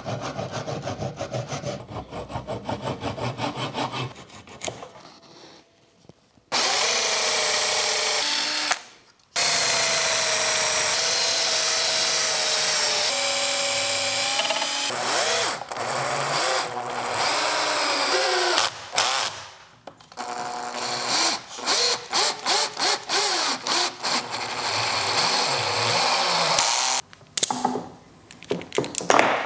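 Backsaw cutting pine in quick strokes, about three a second, then a cordless drill driving screws into the pine frame in long steady runs, followed by many short bursts.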